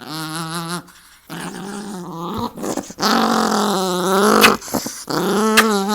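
Dog making a drawn-out, wavering vocal noise in four stretches of a second or more each, with short breaks between, brought on by playful wrestling. A couple of sharp clicks come near the end.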